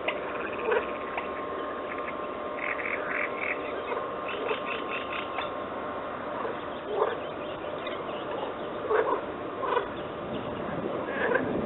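A chorus of wild animal calls: short calls every second or two, with several bursts of rapid pulsed calls, typical of a frog chorus.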